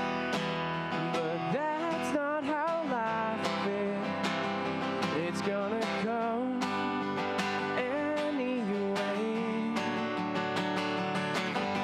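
Live acoustic guitar strummed in a steady rhythm, with a man singing over it, his voice wavering with vibrato on held notes.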